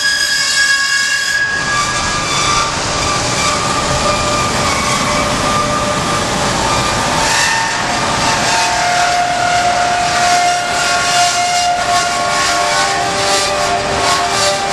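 Hyd-Mech S-25P horizontal band saw blade cutting through rectangular steel tubing under flowing coolant: a loud, steady metal-cutting noise with several high ringing squeals that come and go and shift in pitch.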